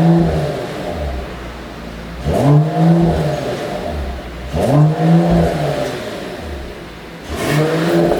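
Mercedes-AMG CLS53's turbocharged inline-six revved in short blips, about one every two and a half seconds, the pitch climbing then falling back to idle each time; the engine runs a pops-and-bangs exhaust tune.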